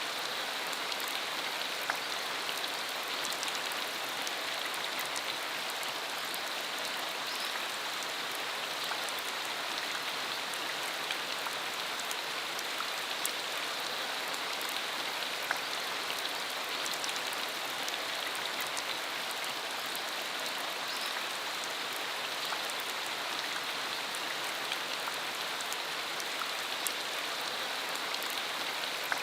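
Rain shower falling steadily: a constant hiss dotted with many small drop ticks.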